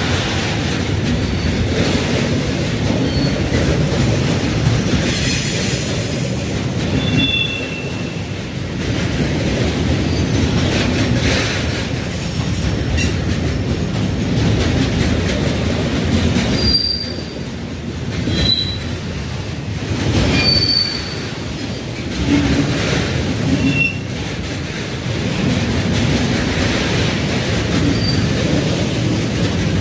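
Freight train wagons rolling on the track with a steady rumble, and brief high-pitched wheel squeals every few seconds.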